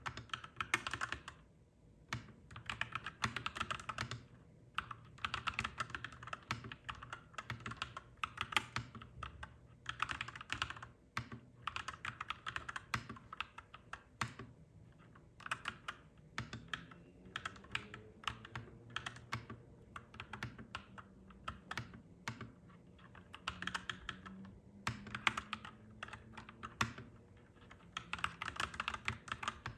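Fast typing on a clacky mechanical keyboard: dense runs of key clicks in bursts broken by short pauses. A faint low drone, slowly rising in pitch, sits beneath the typing through the second half.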